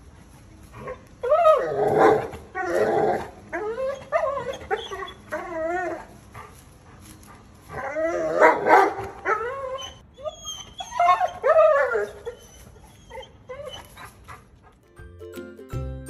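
A small dog barking and howling in several bursts of drawn-out, wavering cries with short pauses between them. Light music starts near the end.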